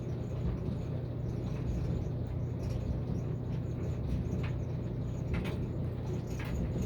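Washing machine running with a steady low hum, with scattered faint clicks over it.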